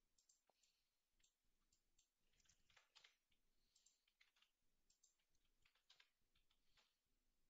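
Very faint, scattered clicking of a computer keyboard and mouse, a dozen or so short irregular clicks.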